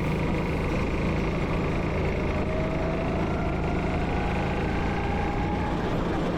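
Go-kart engine running steadily under way on a wet track, its pitch rising slowly through the middle as the kart gains speed.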